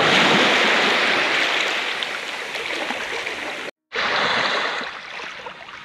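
Small waves lapping and washing up onto a sandy beach, a steady hiss of water that cuts out briefly about two-thirds through and comes back quieter.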